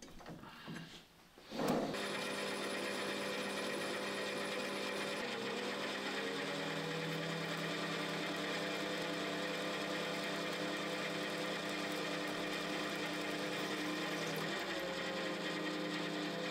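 Metal lathe starting up about two seconds in, then running steadily while turning a steel bar with a carbide insert: a steady motor and gear whine of several tones, changing slightly in tone partway through as the cut goes on.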